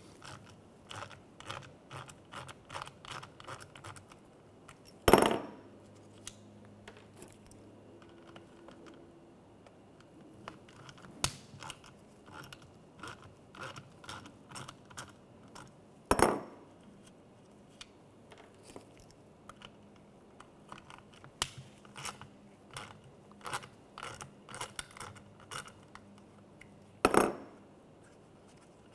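Hand ratchet with a T20 socket clicking in short runs of about three or four clicks a second as screws are backed out of the leak detection pump's plastic housing. Three louder sharp knocks on the wooden workbench are spaced about eleven seconds apart.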